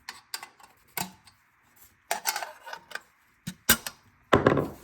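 Irregular sharp plastic clicks and knocks as the back housing of a car radio head unit is worked loose by its snap-in tabs, with one loud snap just before the end.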